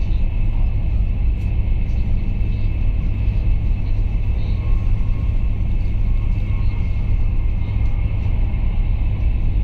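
Steady low rumble of a Chinese high-speed train running at speed, heard from inside the passenger carriage, with a faint steady high whine over it.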